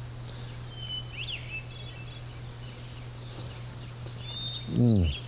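Quiet outdoor background with a steady low hum and a few faint high bird chirps. Near the end, a man gives a short appreciative "mmm" that falls in pitch as he chews a bite of fresh tomato.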